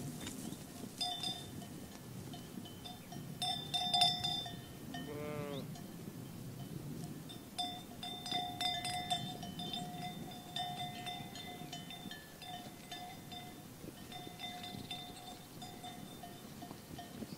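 Bells on a grazing flock of sheep clanking irregularly, in bouts of ringing at the same two pitches, with one short bleat about five seconds in.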